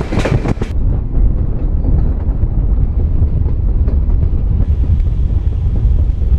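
El Chepe passenger train running at a steady pace, a loud steady low rumble heard from beside an open carriage door, with a few short clattering knocks in the first second.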